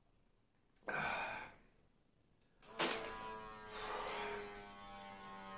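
A wrist blood pressure monitor's small pump motor switches on about three seconds in and buzzes steadily as it inflates the cuff, its pitch sinking slowly as the pressure builds. Before it, about a second in, one heavy breath out.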